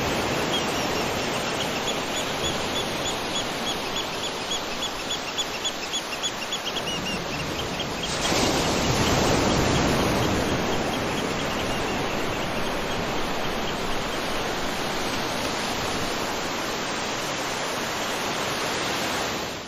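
Waterfall rushing steadily, with a rapid run of high chirps over it for the first several seconds. The water swells louder about eight seconds in, then settles back to its steady rush.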